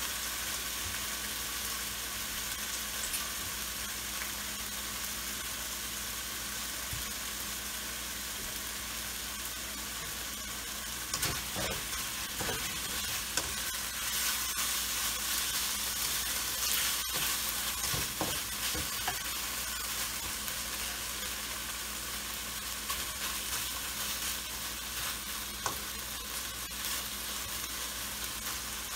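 Sliced beef flank steak sizzling in a hot nonstick wok, a steady frying hiss as the raw meat sears from red to brown. From about eleven seconds in, a spatula stirs and scrapes the meat around the pan, with a few short clacks against the wok.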